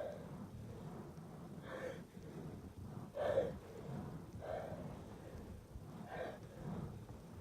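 A person's voice gasping in short, sharp breaths about six times, the loudest about three seconds in: the gasping build-up to a sneeze.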